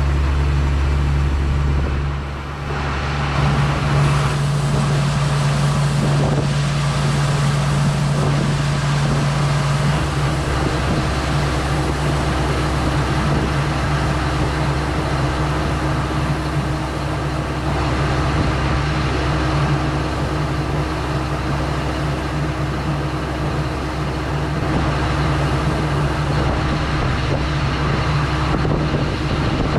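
New Holland TR89 combine harvester running steadily under load while harvesting oats, a continuous engine and machinery drone. It dips briefly about two seconds in, and its tone shifts around ten seconds in.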